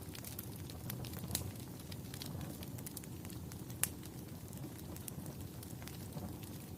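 Fire crackling: scattered sharp pops and snaps over a low, steady rumble of flames, with a louder pop about a second and a half in and another near four seconds.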